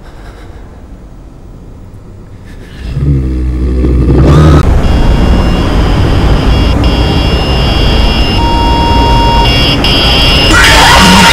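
Horror sound design: a faint low rumble that swells suddenly about three seconds in, with a rising tone, into a loud, harsh drone with high ringing tones over it, and a louder, shrill wavering screech near the end.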